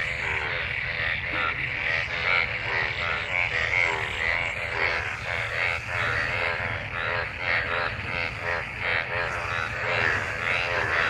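A chorus of many frogs calling together in rain-gathered water after monsoon rain, a breeding chorus. Croaks overlap densely, several a second, with a steady low rumble underneath.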